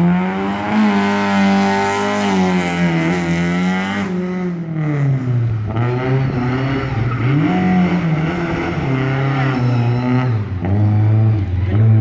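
Lada VFTS rally car's four-cylinder engine revving hard as it launches and runs a tight gymkhana course, the pitch held high, dropping and climbing again several times with gear changes and lifts off the throttle. Tyres squeal in the first few seconds.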